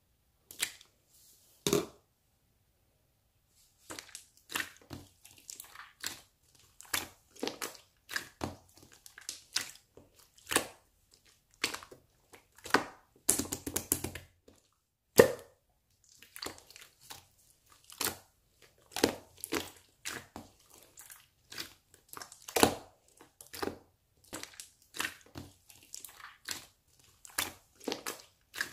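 Marbled slime being squished and stretched by hand, giving irregular sharp pops and crackles of trapped air, about one or two a second after a short pause near the start.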